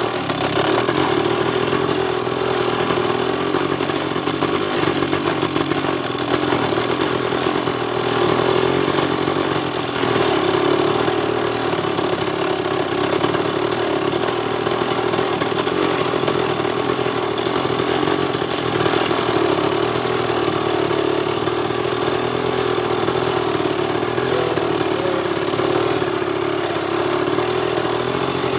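Motorcycle engine running steadily at moderate speed while the bike is ridden, with small rises and falls in engine speed.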